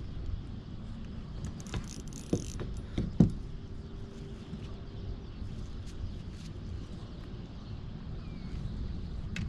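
Fishing reel being cranked against a hooked fish's pull, with mechanical clicking and a sharp knock about three seconds in, over a steady low rumble.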